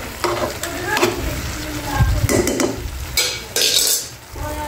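A metal spoon stirring and scraping noodles and vegetables in a metal pan over the heat, with a light sizzle. Several scrapes and knocks against the pan, the loudest about two seconds in, and a hissing burst a little after three seconds.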